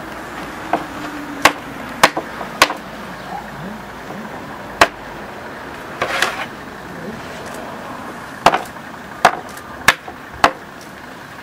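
Hammer blows on the hub of a wooden spoked cart wheel: about ten sharp strikes at irregular spacing, some in quick pairs.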